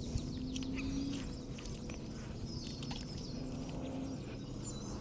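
Small scattered clicks and ticks of fishing line and a reel being picked at to clear a backlash (a "bird's nest"), over a low steady hum.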